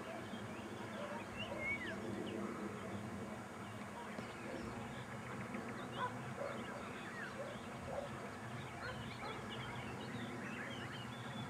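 Many short bird chirps and little whistled glides, scattered throughout over a steady low hum.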